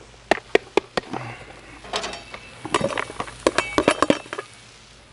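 Diced potatoes tipped out of a plastic tub onto a flat-top gas griddle, then a steel turner scraping and knocking the last cubes out of the tub. It comes as a string of sharp clicks and clinks, a few spaced out at first and a quick cluster in the second half.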